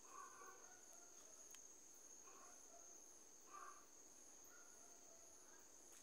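Faint night insect chorus: crickets with one steady high-pitched trill and a fainter pulsing call above it, about two pulses a second.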